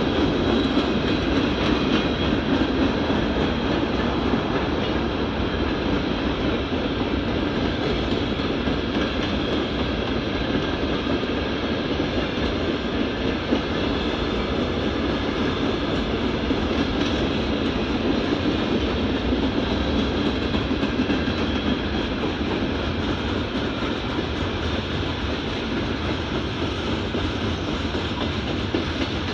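Norfolk Southern mixed freight train's cars rolling past on steel wheels, a steady, unbroken noise of wheels on rail.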